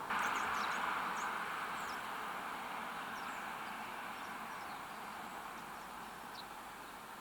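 A steady outdoor hiss that starts suddenly and slowly fades, with several short, high bird chirps scattered over it.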